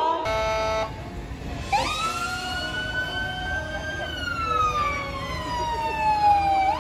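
Emergency-vehicle siren wailing: the pitch climbs over about two seconds, then falls slowly over nearly three, and starts climbing again at the end. It begins with a short, steady horn-like tone lasting about half a second.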